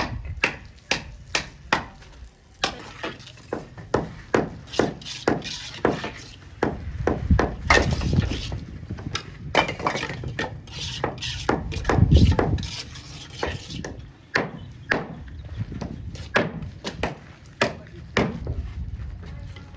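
Bricklaying work: tools repeatedly knocking against bricks and mortar in sharp, irregular taps and chops, with some scraping between them.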